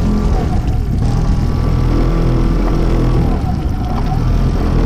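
Honda 8 hp twin-cylinder four-stroke outboard motor running steadily as it pushes the boat.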